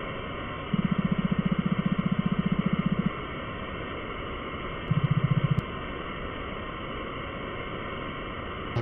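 Retro video-game style dialogue text blips: a rapid string of low buzzing beeps for about two and a half seconds from just under a second in, then a short burst near five seconds in. They play over a steady background hiss.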